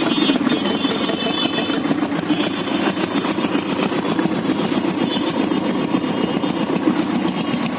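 Royal Enfield Bullet's single-cylinder engine idling steadily just after being started.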